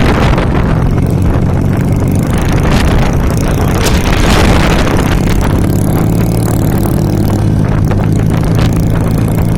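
Strong gusting wind buffeting the microphone, a loud low rumble with rushing noise. From about six seconds in, a steady low engine-like hum runs underneath it.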